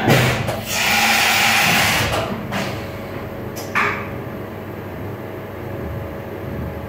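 Grawostar CNC Master vertical machining centre moving its spindle up to the tool-change position. A sharp clack comes first, then a hiss of about a second and a half, another click, and a steady machine hum.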